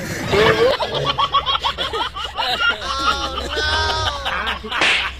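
Laughter sound effects, giggling and snickering, over background music, with a short hiss near the end.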